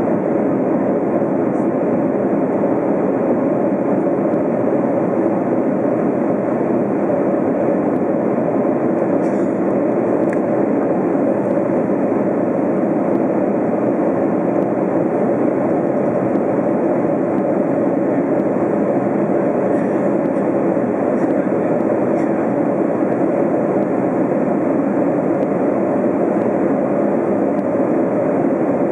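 Steady rushing cabin noise of an Airbus A330 in flight on its descent to land: airflow and engine noise heard from a window seat, constant throughout.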